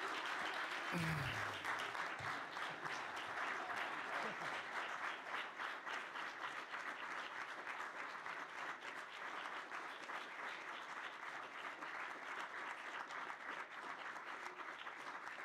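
Audience applauding steadily, slowly dying down. A short falling voice is heard about a second in.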